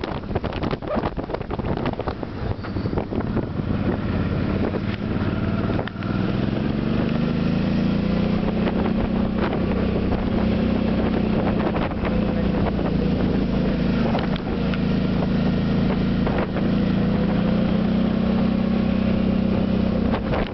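Motorcycle engine running at cruising speed, with wind buffeting the microphone on the moving bike. Wind gusts dominate for the first few seconds, then a steady engine hum takes over, its pitch drifting slowly up and down.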